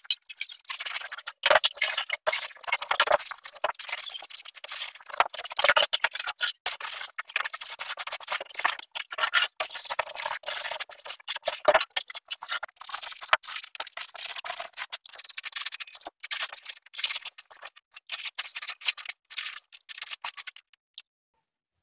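A floor being wiped by hand with a cloth: quick, uneven rubbing and scraping strokes with short pauses, stopping about a second before the end.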